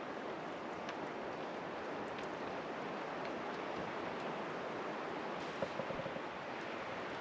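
Steady wind rushing through forest trees, with a few faint ticks about five and a half to six and a half seconds in.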